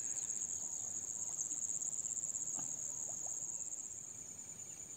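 Insects trilling in a steady, high-pitched, continuous chorus.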